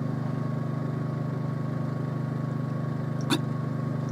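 A steady low hum, with a single short click about three seconds in: the lip or swallow sound of someone drinking from a plastic bottle.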